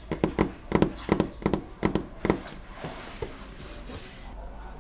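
Fingertips tapping and picking at the plastic protective film on a new fridge's water-dispenser panel, right against the microphone: about ten quick taps in the first couple of seconds, then softer handling.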